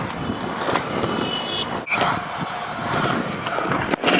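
Kick scooter wheels rolling over skatepark concrete, a steady gritty rumble with a brief break about two seconds in.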